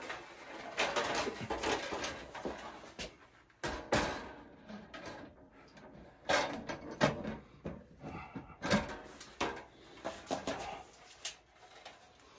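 Sheet-metal electrical service panel cover being handled and set back in place: irregular knocks, scrapes and rattles, with a few sharper strikes.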